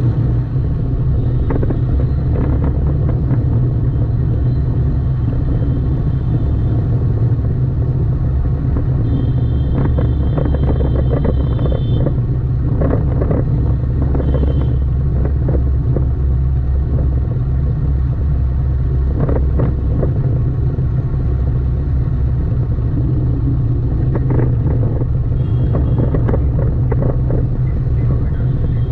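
Steady low rumble of a car driving through city traffic, with engine and road noise and other motor vehicles passing. A few short high tones sound about ten seconds in.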